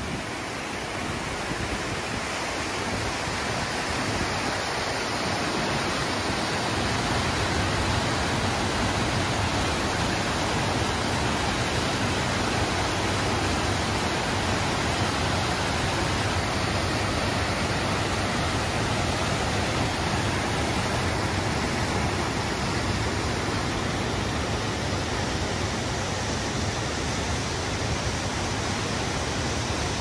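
Waterfall: a steady rush of falling water that grows louder over the first several seconds, then holds steady.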